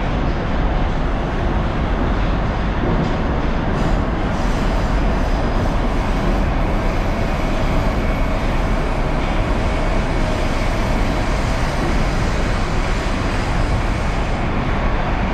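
Steady running noise of an 81-760/761 Oka metro train, heard inside the passenger car while it travels between stations: an even rumble and hiss of wheels on rails and running gear, with a faint steady high tone.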